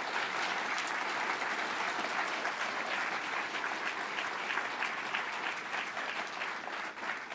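Audience applauding, a dense, even clatter of many hands clapping.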